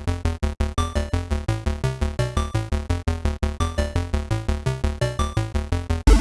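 Background music: a quick, bouncy synthesizer tune with evenly repeating notes.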